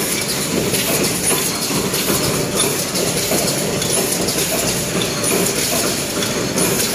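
Automatic paper plate making machine running: a steady mechanical clatter with a repeating stroke about every two-thirds of a second.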